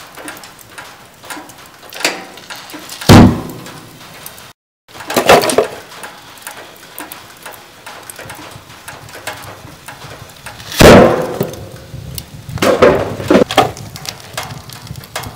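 Sealed cardboard milk cartons bursting on the embers of a wood stove fire: a series of loud, sharp bangs, the loudest about eleven seconds in, followed by a quick cluster of smaller pops near the end.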